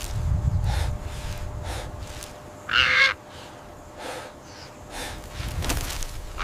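A crow's single harsh caw about three seconds in, the loudest sound, over a low rumble and soft, repeated breathing.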